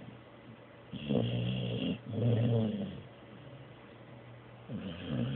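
Blue nose pit bull snoring in its sleep: two snores back to back starting about a second in, a pause, then the next snore starting near the end.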